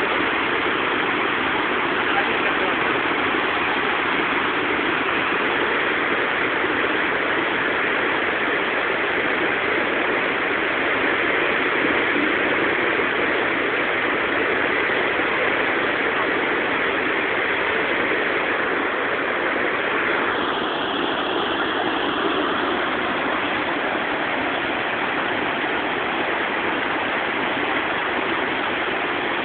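Whitewater of the Potomac River's Great Falls rushing over rocks, a steady, unbroken noise.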